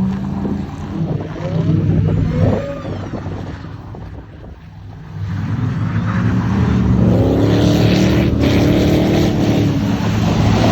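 A motor vehicle's engine running. It eases off about four seconds in, then revs up with a rising pitch and holds at higher revs.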